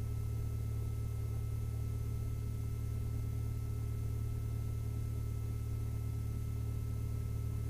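The Mooney M-20F's Lycoming IO-360 four-cylinder fuel-injected engine idling steadily during warm-up, heard from inside the cockpit as a constant low drone. The oil is still below operating temperature, before the run-up.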